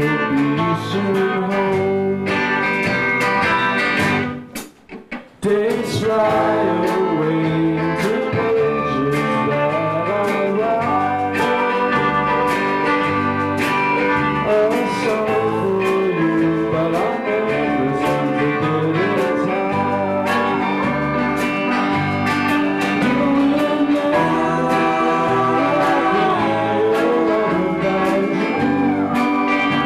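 Live band playing country-blues-style music led by guitar over a steady bass line. The sound cuts out almost completely for about a second, around four seconds in, then comes back.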